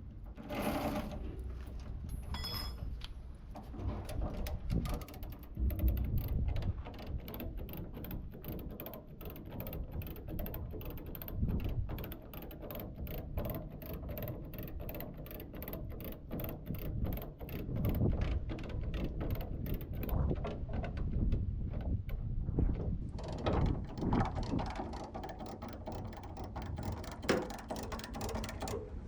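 Mechanical ticking and clanking in a fast, even rhythm, with a few heavier knocks.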